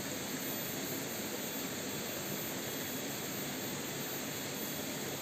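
Steady, even rushing of a shallow rocky stream, with no distinct events.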